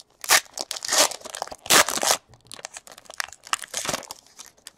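Foil wrapper of a Panini Elite Extra Edition baseball card pack being torn open and crinkled by hand, in a few sharp bursts, the loudest about two seconds in, then lighter rustling.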